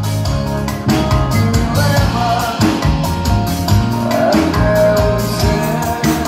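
Live band playing through a PA system: drum kit beating steadily under electric guitar and bass guitar, with a male singer.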